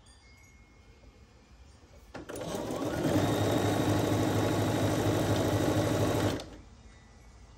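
Computerized sewing machine stitching a seam in pieced quilt fabric: it starts about two seconds in, runs up to speed, hums steadily for about three seconds, then stops.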